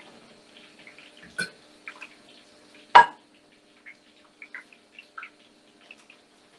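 Batter-coated banana blossom deep-frying in a pan of hot oil, with scattered crackles and spits. About three seconds in, a plate is set down on the worktop with a sharp knock, the loudest sound.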